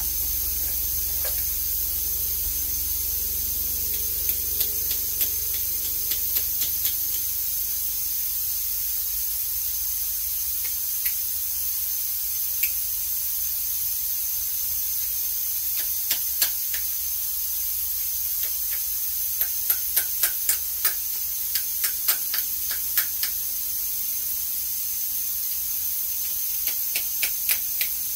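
Steady hiss of compressed air leaking from the air hose and impact gun fittings, a sign of an air leak in the line. Scattered light clicks and taps sound over it, in short runs, thickest about two-thirds of the way through and near the end.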